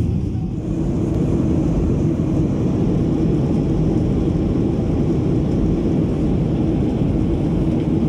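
Steady low roar inside a jet airliner's cabin in flight, from the engines and the air rushing past the fuselage.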